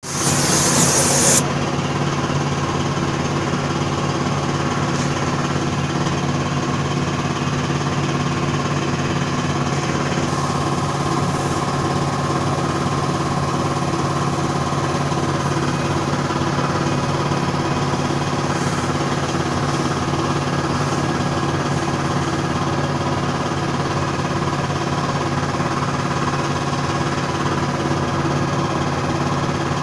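Air compressor motor running with a steady hum. A spray gun hisses loudly over it as it sprays, cutting off about a second and a half in.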